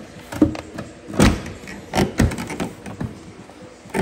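Several sharp clunks and knocks, four or five spread over a few seconds, from the panels and latches of a BMW E36 convertible top being worked toward closed.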